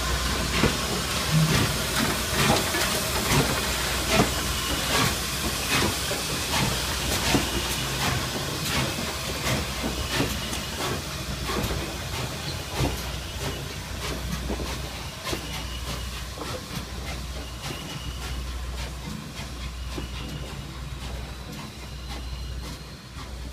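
Norfolk & Western J-class 4-8-4 steam locomotive No. 611 passing slowly at close range: steam hissing and a low rumble, with sharp wheel clicks over the rail joints. It grows steadily fainter as the engine draws away.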